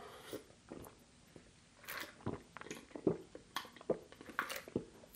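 A man gulping down a drink from a glass: a series of close, irregular swallows.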